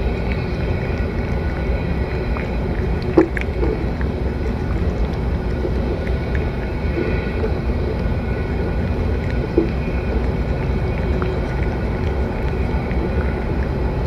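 Cat eating wet flaked fish from a metal plate close to the microphone, with a few brief soft smacks and clicks of chewing and licking, over a steady low rumble.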